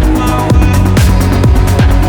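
Electronic dance music, trance or techno style, with a steady kick-drum beat.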